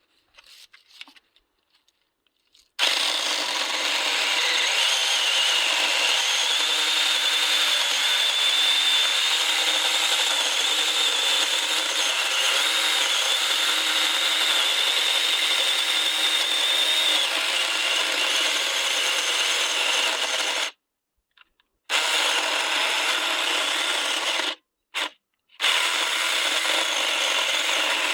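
Saker mini cordless electric chainsaw running and cutting into a thick tree branch, a steady noise with a high-pitched whine. It starts about three seconds in and stops suddenly three times in the second half, once for about a second and twice very briefly.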